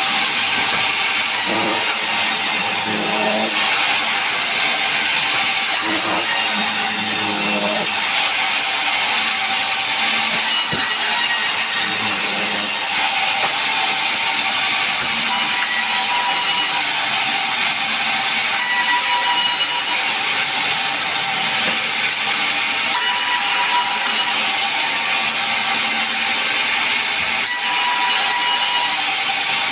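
Sawmill saw cutting through a pine log, a continuous loud, high-pitched sawing noise with thin steady tones running through it.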